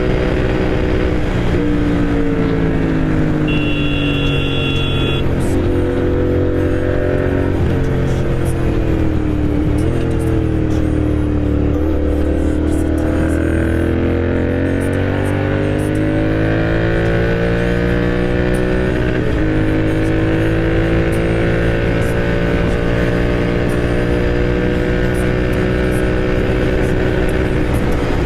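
Royal Enfield Continental GT 650's parallel-twin engine running through an aftermarket Moto Torque exhaust while riding. The engine note holds, shifts in steps several times, and falls away through the middle before climbing steadily again. A brief high two-tone beep sounds about four seconds in.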